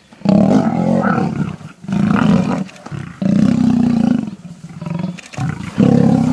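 Male lions fighting, roaring loudly in four calls of about one to one and a half seconds each, with short breaks between them.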